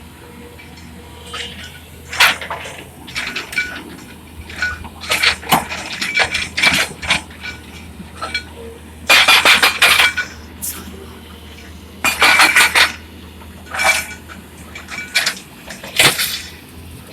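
Excavator at work: repeated bursts of sharp metallic clanking and clattering over the low steady drone of its engine.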